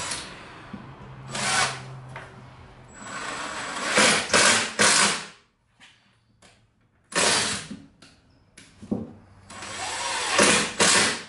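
Power drill driving 1-inch screws through the drawer box into the drawer face, in several short runs of a second or two with a quiet gap in the middle, seating the screw tight.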